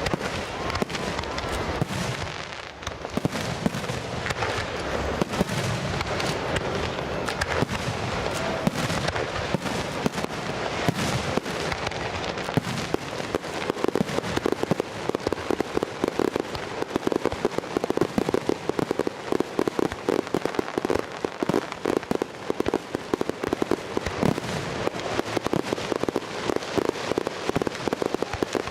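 Fireworks display going off without let-up: a dense, continuous run of rapid pops and crackles, growing thicker and more even about halfway through.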